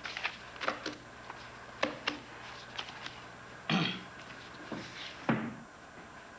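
Handling and movement noise from a man getting up from a desk chair and walking off: scattered soft knocks and rustles, with two louder noises about four and five seconds in.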